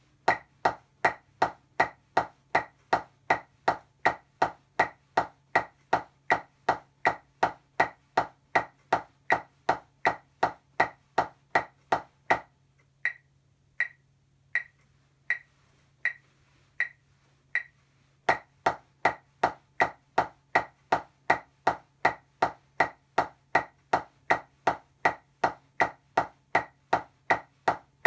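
Drumsticks striking a rubber practice pad in steady eighth notes, two strokes to each click of a metronome set at 80 beats per minute, in the eight-strokes-per-hand pattern led by the right hand. About twelve seconds in the strokes stop for about six seconds, leaving only the metronome clicks, then resume.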